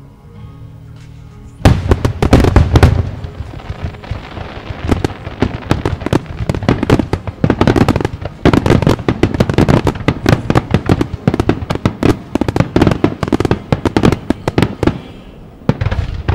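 Fireworks finale barrage: many shells bursting in rapid, overlapping succession. It starts suddenly about two seconds in with the loudest bangs, keeps up a dense crackling run of reports, and thins out near the end.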